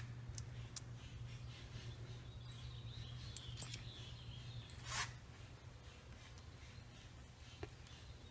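Faint steady low hum with a single short knock about five seconds in and a fainter click near the end.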